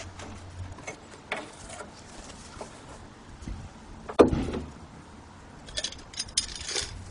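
Metal clinks and rattles of a car's front brake caliper being worked free and lifted off the disc, with one sharp metallic knock about four seconds in and a few lighter clicks and rustles near the end.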